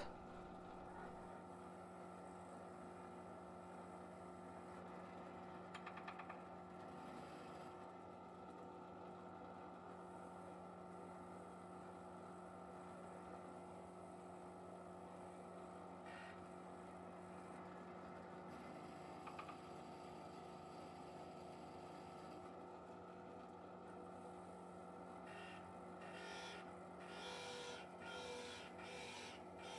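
Faint steady hum of a benchtop drill press motor running while a Forstner bit bores out waste wood, with a few short scraping noises near the end.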